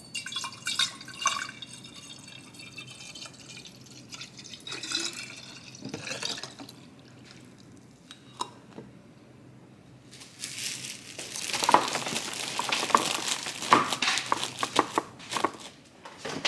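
Water or another liquid pouring and splashing, louder and fuller in the second half, with a few light knocks.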